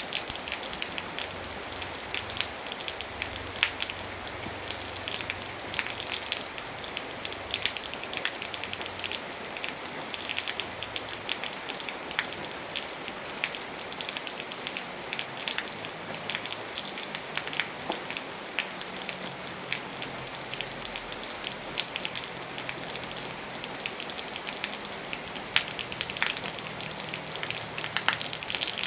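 Steady rain falling, with many sharp drop ticks on a surface over an even hiss.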